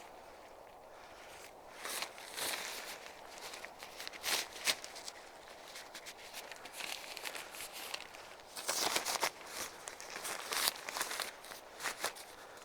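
Irregular rustling, scuffing and shuffling from a tent being handled and pitched, with louder bursts about two, four and a half, nine and ten and a half seconds in.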